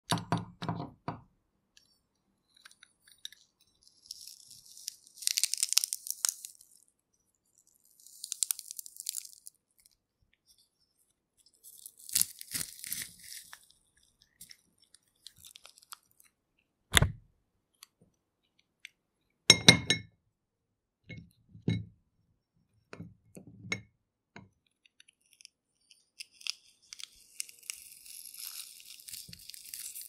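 Metal garlic press crushing garlic cloves: several bursts of crunching as the garlic is forced through the holes, with a few sharp clicks and knocks between them.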